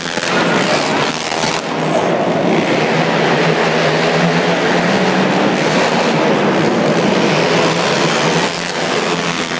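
Several ice-racing quad engines running hard together in a loud, steady mass of engine noise whose pitch shifts as the riders work the throttle. It drops back briefly near the end.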